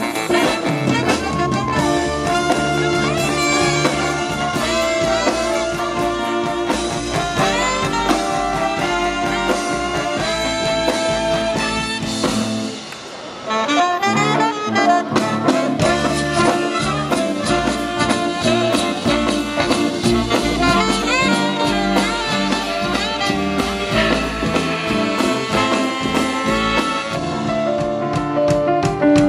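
Live swing band playing an instrumental passage led by a saxophone and brass section. The band stops for about a second near the middle, then comes back in.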